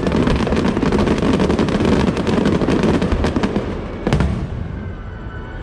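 Fireworks going off: a dense, rapid crackling over a low rumble, with one louder bang about four seconds in, after which the crackling thins out.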